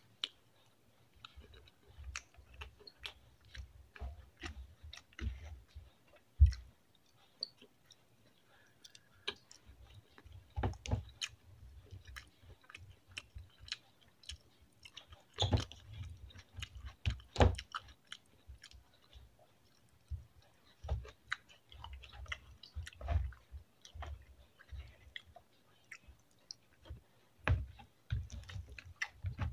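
Close-miked chewing and biting of a person eating rice and fried chicken with his hands, in irregular runs of sharp clicks and low thumps with short pauses.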